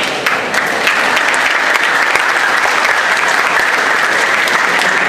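Large crowd applauding, breaking out suddenly and holding steady and loud.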